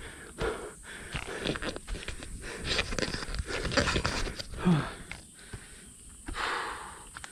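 Footsteps and scrambling on a leaf-littered dirt trail during a steep climb, with the climber's hard breathing and a short low grunt about two-thirds of the way in.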